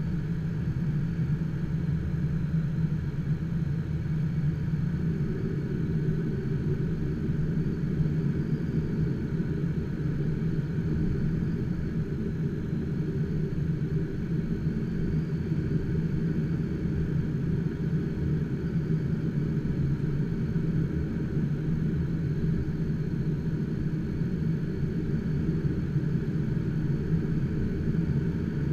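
Steady low rumble of airflow around the cockpit of an HK-36 Dimona motor glider gliding with its engine shut down and propeller stopped.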